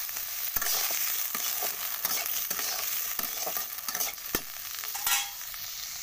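Sliced radish sticks frying in hot oil in an aluminium kadai, with a steady sizzle. A few sharp clicks of a metal spatula against the pan come through it.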